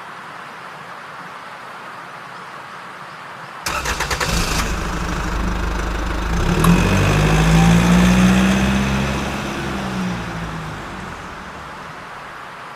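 An engine starting: about four seconds in, a second of rapid cranking pulses, then the engine runs and swells for a few seconds before fading away, over a steady hiss.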